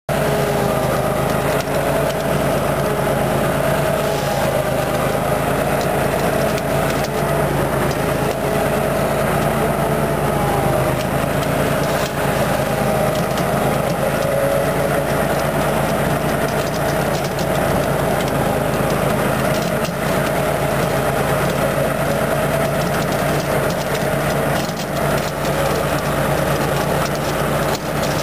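25-horsepower engine of a high-hour (2,600 hours) Walker riding mower running steadily under load while mowing grass.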